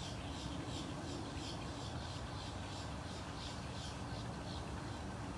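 A small bird chirping over and over in short, high chirps, about two or three a second, over a low steady rumble.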